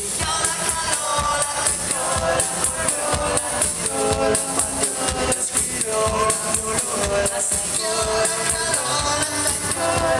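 A live rock band playing, with melodic lines over a fast, even hand-percussion rhythm and drums.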